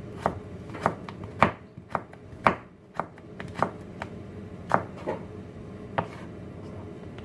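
Kitchen knife slicing Korean radish into thin strips on a cutting board: about a dozen sharp, irregular strikes of the blade on the board, roughly one or two a second, stopping about six seconds in.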